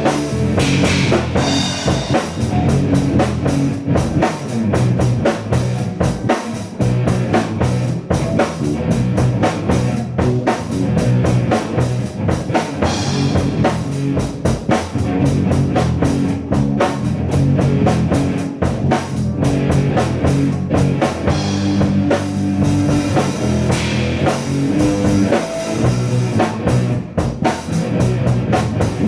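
Rock band playing an improvised instrumental jam, with drum kit and electric guitar and no vocals.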